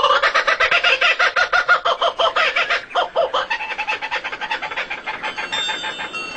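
Bird calls: a loud, rapid run of repeated harsh notes that breaks briefly about three seconds in and then grows fainter.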